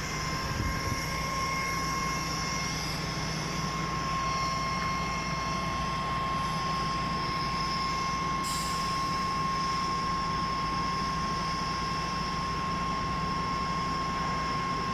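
Putzmeister 42-5 truck-mounted concrete pump running steadily at idle, a low engine hum with a constant high whine over it.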